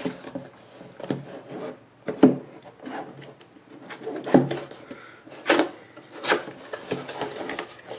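Packaging being opened and handled: rubbing and scraping with several sharp knocks and taps.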